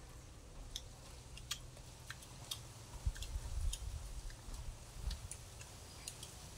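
Faint eating noises: scattered small clicks and smacks of people chewing catfish and picking the meat off the bones with their fingers, with a few dull low thumps.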